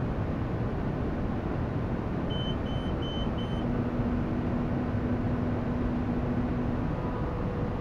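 John Deere tractor running steadily, heard from inside the cab as it pulls a round baler along hay windrows. About two seconds in, four short high electronic beeps sound in quick succession, and a steady low hum joins for about four seconds.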